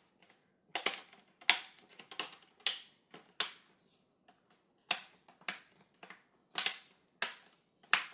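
Plastic screen bezel of a Dell XPS 17 laptop being pressed back onto the lid, snapping into its clips with a dozen or so sharp clicks, roughly one every half second, with a short pause near the middle.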